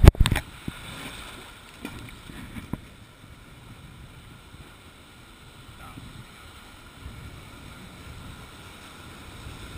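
River water rushing and lapping around an inflatable raft, with wind buffeting the microphone. A loud thump comes right at the start, and a few lighter knocks follow in the first few seconds.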